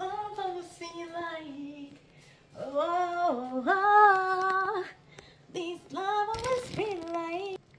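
A woman singing unaccompanied, a few phrases with long held notes, the longest about four seconds in.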